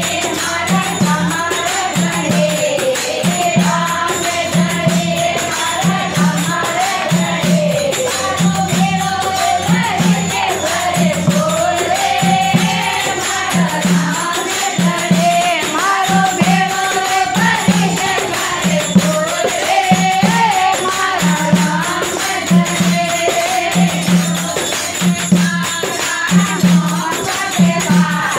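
A group of women singing a Marwari devotional bhajan together, accompanied by a dholak beating steadily about once a second.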